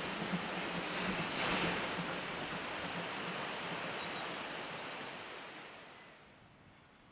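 A steam locomotive running past, its rushing noise fading away between about five and six seconds in.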